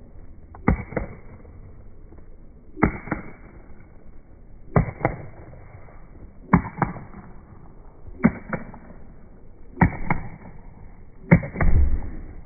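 A sharp double smack, like a pair of claps or impacts, repeating in an even rhythm about every two seconds, seven times in all. A short low rumble comes with the last pair near the end.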